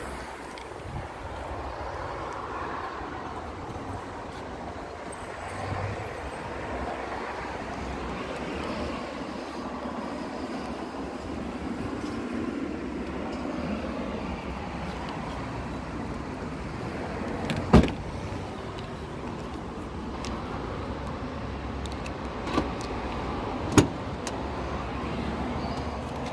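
A car's hatchback tailgate shut with one loud clunk about two-thirds of the way through, then two sharper clicks a few seconds later as a rear door latch is opened, over steady outdoor background noise.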